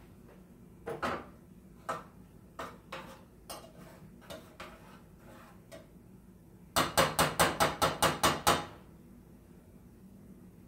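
Cookware being handled at the stove: scattered knocks and clinks, then a quick run of about ten sharp strikes in under two seconds, the loudest sound.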